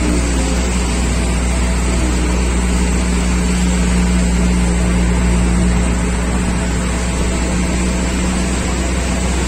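Zoo mini train's engine running steadily under way, heard from an open carriage: a constant low hum.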